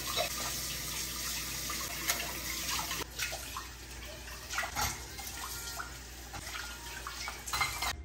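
Kitchen tap running into a sink while utensils are rinsed under the stream, with a few light clinks of metal against metal or the sink. The water cuts off suddenly near the end.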